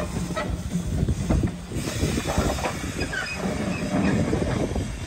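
Quarry Hunslet narrow-gauge steam locomotive running along the track under steam: a busy stream of exhaust and steam hiss mixed with the clatter of its wheels and motion on the rails.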